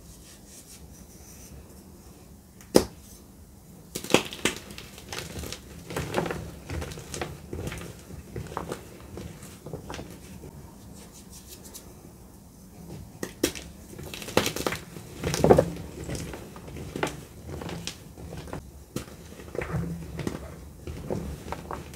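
Hands crushing dry, dusty gym chalk blocks, with irregular crunches and crumbles. There is one sharp snap about three seconds in, steadier crunching from about four seconds, and the loudest crunches a little past the middle.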